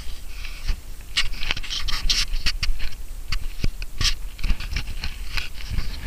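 Wind rumbling on the microphone, with irregular scratching and rustling clicks from grass stalks brushing against the camera.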